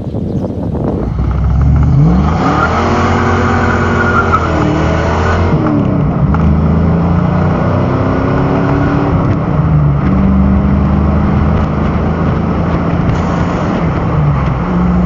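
5.0-litre V8 of a convertible accelerating: the engine note climbs from about two seconds in, drops at a gear change around five and a half seconds, climbs again, then settles to a steady cruise.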